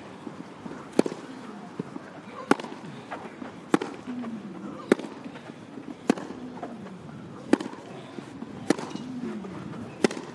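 Tennis ball hit back and forth in a baseline rally on a grass court: eight sharp racket strikes about every second and a quarter.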